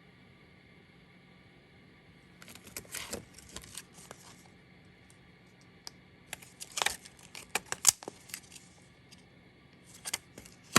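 Small metal bullion bars being handled with their plastic packaging: bursts of clicks, taps and rustling in three spells, the sharpest tap about eight seconds in, with quiet room tone between.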